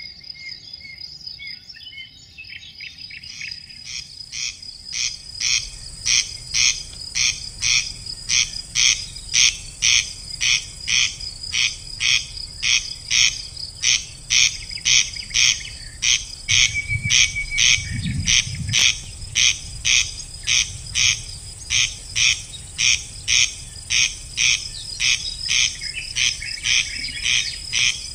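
An animal calling over and over: a rasping note repeated evenly about twice a second, growing louder over the first few seconds, over a steady high buzz of insects. A brief low rumble comes about 17 seconds in.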